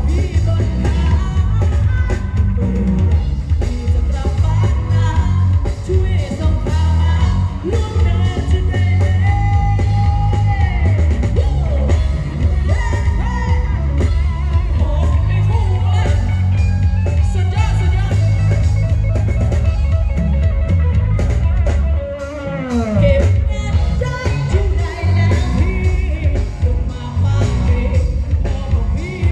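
A song with singing and very heavy bass, played loud through a Thai parade sound truck's stacked speaker cabinets: Thai Audio SR18 bass cabinets and TD-112 mid cabinets. The bass drops out briefly about two-thirds of the way through.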